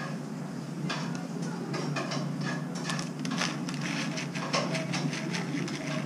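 Plastic snack packet crinkling in the hand as a crushed dry noodle snack is shaken out of it into a bowl of soup: a quick run of crackles that grows busier toward the end, over a steady low hum.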